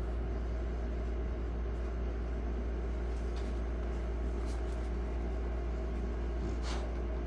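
A steady low hum, with a few faint soft clicks in the second half.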